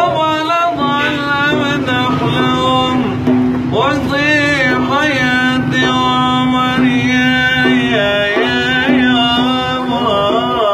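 A young man sings ornamented, bending Arabic vocal lines into a plastic bowl held against his mouth, the bowl resonating with and colouring his voice. A steady low tone holds underneath the singing.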